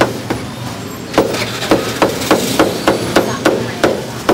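Cleaver chopping on a cutting board: a few light strokes, then a fast, even run of sharp chops, about four a second.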